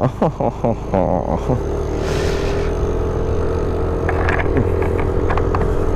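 Yamaha Aerox 155 scooter's single-cylinder engine running while being ridden, with shifting sounds in the first second or so, then settling into a steady drone.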